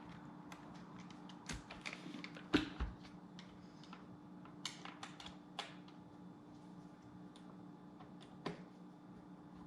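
Irregular small clicks and taps of a screwdriver on screws and a plastic vacuum housing as the screws are driven back into a Dyson V8's battery pack, over a faint steady hum. The loudest knock comes about two and a half seconds in.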